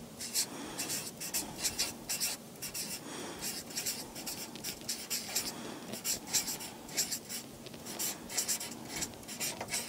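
Marker pen writing on a sheet of paper on a desk: a quick run of short scratchy strokes.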